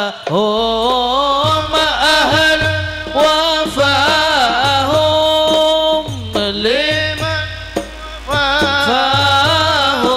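Two men singing an Arabic sholawat into microphones in long, ornamented held notes, over an electronic keyboard accompaniment with a steady low beat.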